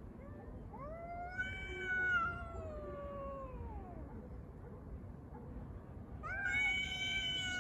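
Street cats yowling in a fight standoff: two long, drawn-out wails, each rising and then sliding slowly down in pitch, the second starting near the end.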